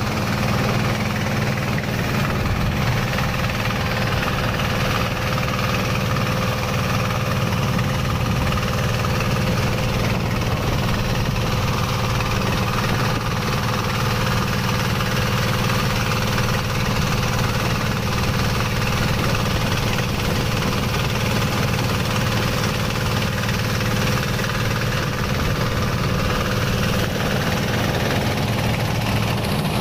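Boat engine running steadily, a constant low drone that holds the same pace and loudness throughout.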